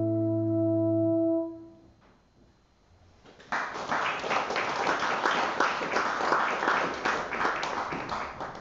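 A piece of instrumental music ends on a long held chord that dies away about a second and a half in. After a short silence, applause starts about three and a half seconds in and lasts about five seconds before fading.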